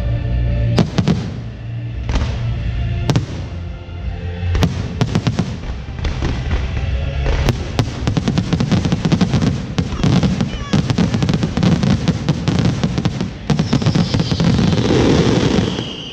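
Fireworks show set to music: single sharp bangs go off every second or so at first, then a dense run of rapid crackling bangs from about halfway, easing off near the end, with music playing underneath.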